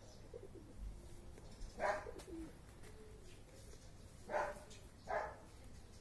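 Soft animal calls: three short cries, one about two seconds in and two close together near the end, with faint low tones between them.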